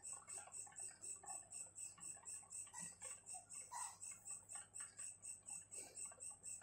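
Insect chirping steadily in a high, even pulse about five times a second, with faint scratching of a pen writing on paper.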